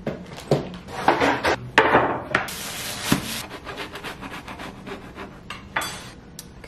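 Knife sawing through a crusty bread loaf on a wooden cutting board: the crust crackling and scraping, with a run of sharp knocks of knife and loaf against the board.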